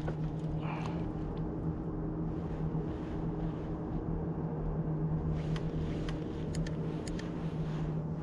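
A steady motor hum at one even pitch, with a few light clicks and taps near the end.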